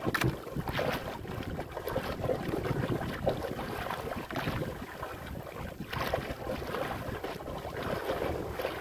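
Wind buffeting the microphone over a choppy sea, with waves slapping and splashing against the hull of a small wooden outrigger boat and a few sharper splashes.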